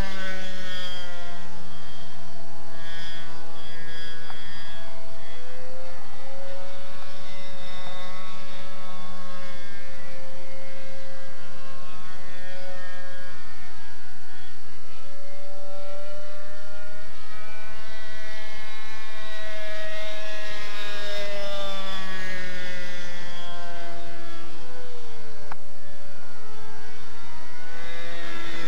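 Radio-controlled model airplane's engine running in flight overhead, one continuous buzzing note whose pitch slowly rises and falls as the plane manoeuvres, dipping noticeably near the end.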